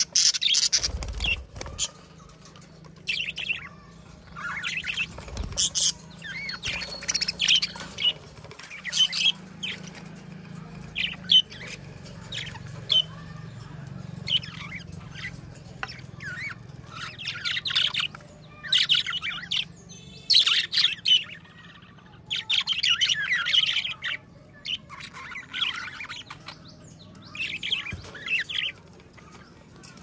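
A flock of budgerigars chirping and warbling in short chattering bursts every second or two. There is a low bump about a second in and another about five seconds in.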